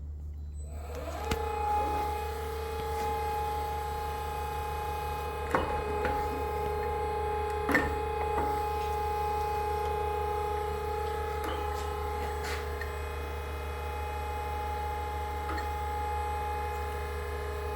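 An electric motor on a Karstens OD grinder starts about a second in and runs with a steady whine over a low hum. A few sharp clicks and knocks come from the machine, the loudest about a third and halfway through.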